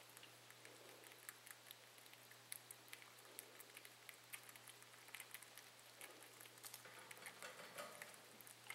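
Faint, irregular small clicks and pattering from baby cottontail rabbits suckling and mouthing at a hand-held feeder, over a low steady hum.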